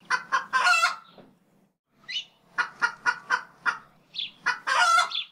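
Domestic fowl calling in two runs: a few short, evenly spaced clucks, each run ending in a longer, louder call, with a fainter higher chirp between them.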